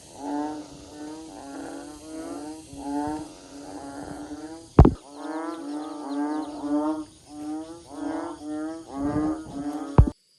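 An animal calling over and over in short, wavering, pitched cries, about two a second. Two sharp knocks come, one about halfway through and one just before the sound cuts off.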